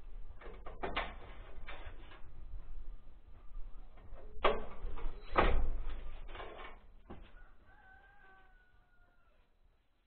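A handful of knocks and clatters from hand work on the house's gable, the loudest two about four and a half and five and a half seconds in. Then a rooster crows faintly, one long call that slides slightly down in pitch.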